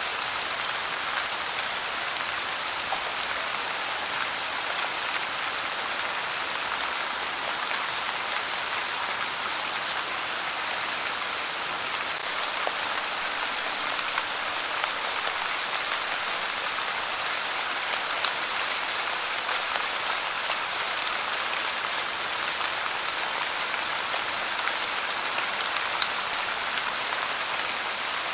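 Light rain falling steadily: an even hiss of drops with faint scattered ticks of individual drops.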